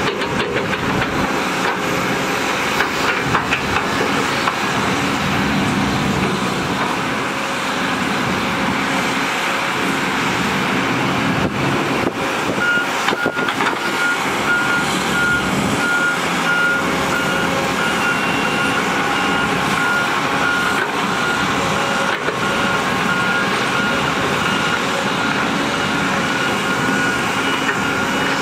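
Diesel engines of heavy earthmoving machines running steadily: a dump truck tipping its load, a padfoot vibratory roller and a crawler dozer. From about halfway through, a reversing alarm beeps repeatedly over the engines.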